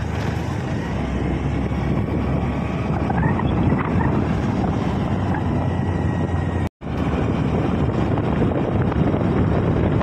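Wind rushing over the microphone of a camera on a moving motor scooter, with engine and road noise beneath it. The sound cuts out for a moment about seven seconds in.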